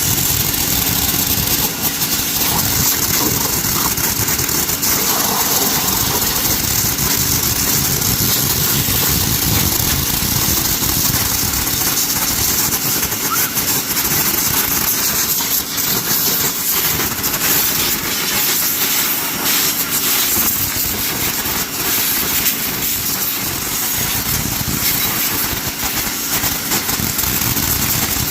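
High-pressure washer running steadily, its motor humming under the loud hiss of the water jet as it blasts down aviary wire mesh and trays.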